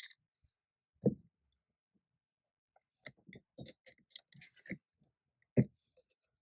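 Palette knife placing translucent paste on a stencil: light taps and small scraping clicks, with a knock about a second in, a run of quick clicks and scrapes between about three and five seconds, and another knock shortly after.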